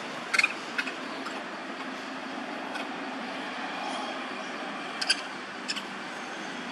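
Steady outdoor background noise, like a distant traffic hum, with a few short sharp clicks: two near the start, one in the middle and two about five seconds in.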